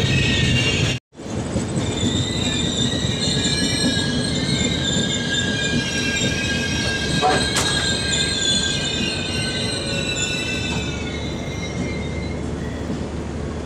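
Train running with its steel wheels squealing against the rails in several high, slightly wavering tones over the low running rumble. The sound cuts out for a split second about a second in, a single sharp knock comes past the middle, and the squeal fades away near the end, leaving only the rumble.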